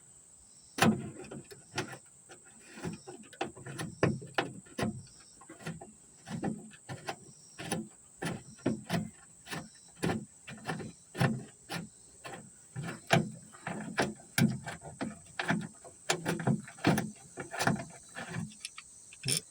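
Socket ratchet clicking in short uneven bursts, about two to three a second, as an 8mm bolt holding a car's trunk latch is backed out.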